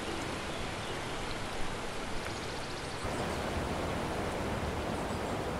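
Steady, even rushing noise of outdoor ambience, with a slight shift in its tone about three seconds in.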